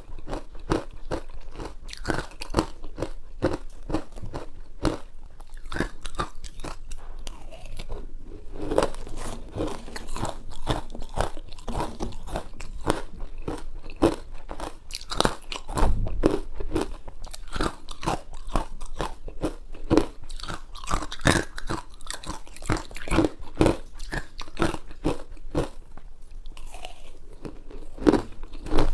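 Close-up crunching of ice being bitten and chewed, a dense run of irregular sharp cracks and crackles with a few louder bites near the middle and near the end.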